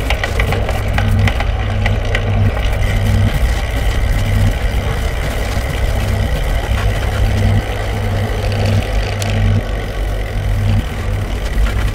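Steady low engine-like rumble that swells and dips unevenly, with scattered crackling clicks over it.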